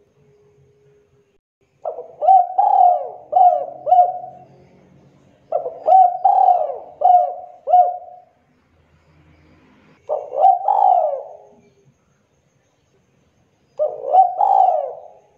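Spotted dove cooing: four phrases of coos a few seconds apart, the first two each a run of about four or five notes, the later two shorter.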